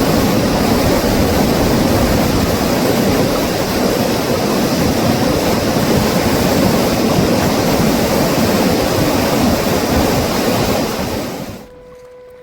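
Loud, steady rush of a fast mountain river. It cuts off suddenly near the end, leaving a faint steady hum.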